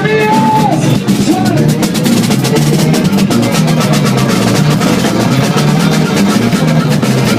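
Music with a busy drum beat and a repeating bass line.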